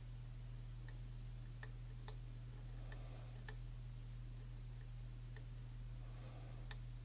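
Faint, unevenly spaced small clicks of a lock pick working the pins inside an EVVA challenge lock, roughly one a second, over a steady low hum.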